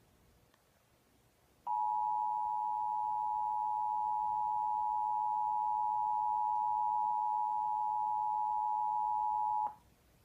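Emergency Alert System attention signal: two steady tones at 853 and 960 Hz sounding together. It starts about two seconds in, holds for about eight seconds and cuts off suddenly, announcing the National Weather Service warning that follows.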